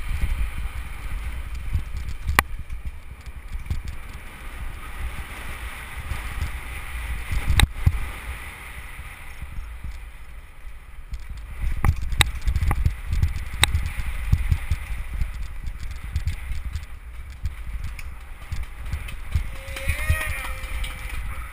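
Downhill mountain bike ridden hard over dirt and rock, heard from a helmet-mounted camera: a steady low rumble of tyres and wind buffeting the microphone, with sharp knocks and rattles as the bike hits bumps. A brief shout near the end.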